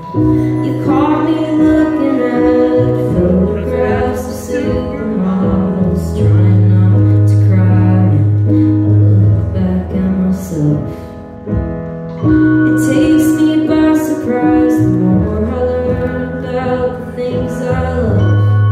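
Live band music: a voice singing over electric keyboard chords and sustained electric bass notes, with a short dip in the playing a little past the middle.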